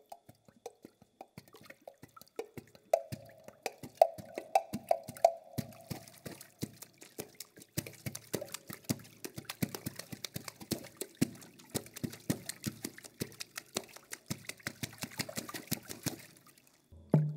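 Water percussion: hands striking, scooping and dripping water in large glass bowls, a dense, irregular patter of drips and plops, with a few ringing pitched notes about three to five seconds in. The water sounds stop shortly before the end, and a drum comes in.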